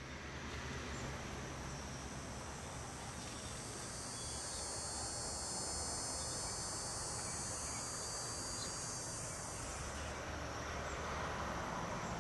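Insects trilling outdoors: a steady, high-pitched chorus that stops about ten seconds in, over a low, steady background rumble.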